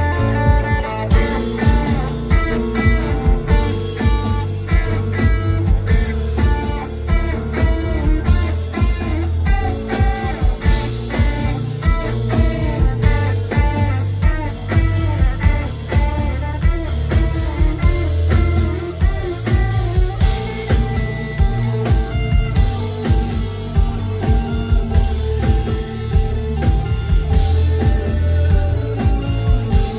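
Live band playing: drum kit with cymbals, electric guitar through an amp, and keyboards, in a steady, unbroken passage.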